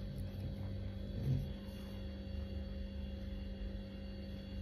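Room tone with a steady low electrical hum and a faint uneven rumble underneath. A brief soft sound comes about a second in.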